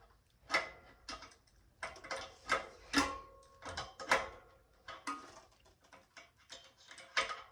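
A wrench clinking on a bicycle bolt as it is tightened: an irregular series of a dozen or more metallic clicks and taps, some ringing briefly.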